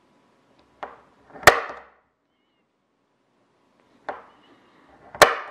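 Automatic center punch snapping into a thin aluminium wing skin to mark rivet holes. Two sharp metallic snaps with a brief ring come about a second and a half in and again near the end, each shortly after a lighter click.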